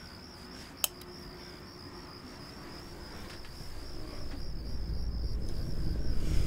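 Crickets chirping in a steady, pulsing high trill of night ambience. There is one sharp click a little under a second in. A low rumbling drone swells louder through the second half.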